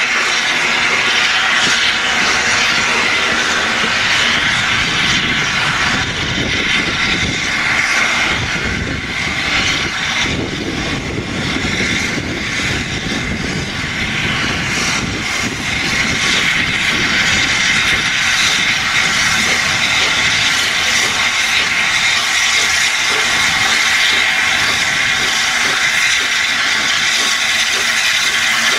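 BR Standard Class 8 Pacific steam locomotive 71000 Duke of Gloucester standing with steam up, letting off steam in a loud, steady hiss. A low rumble joins in for several seconds in the middle.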